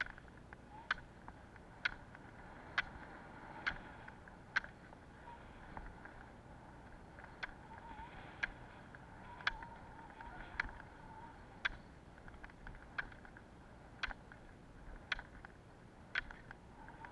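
Roller-ski pole tips striking asphalt in sharp clicks about once a second, with a pause of a few seconds near the middle, over the faint steady rolling noise of the skis' wheels on the road.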